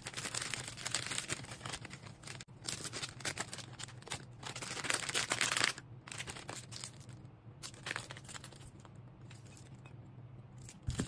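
Crinkling and rustling of packaging being handled, dense for the first five or six seconds and then sparser, over a low steady hum.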